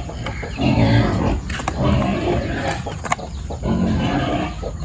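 Pigs squealing and grunting, a string of harsh calls about half a second to a second each.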